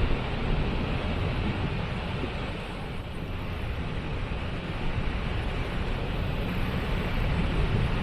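Waterfall: falling water rushing steadily, a dense even noise weighted toward the low end.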